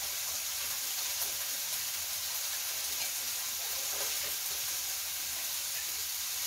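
A steady, even hiss with a few faint, soft sounds rising above it.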